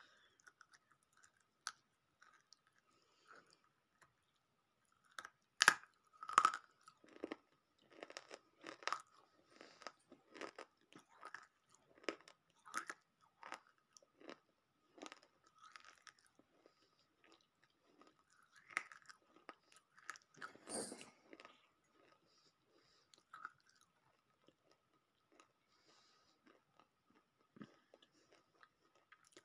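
Biting and chewing a chunk of roasted multani mitti (fuller's earth clay): sharp crunches, loudest about six seconds in, then irregular crunching that thins out to occasional soft chewing after about twenty seconds. A faint steady high whine runs underneath.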